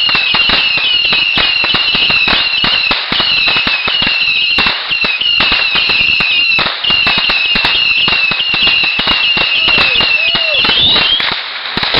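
Consumer fireworks going off in a rapid, continuous string of pops and crackles, with many short falling whistles over the top. The barrage stops abruptly about eleven seconds in.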